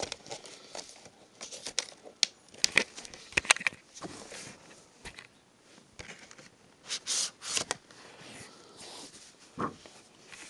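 A Steelbook and its clear plastic outer case being handled: scattered clicks and taps, with short scraping slides of plastic, the loudest about seven seconds in.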